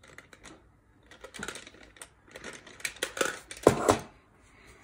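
Small hard objects clicking and rattling as desk supplies are rummaged through for an eraser, with a louder knock about three and a half seconds in.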